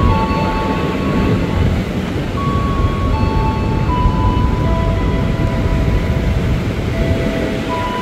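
Tokyo Metro 6000 series electric commuter train rolling into a station platform. Its wheels and running gear give a steady low rumble, under thin, steady electric whine tones from the traction equipment that step to a new pitch every second or so.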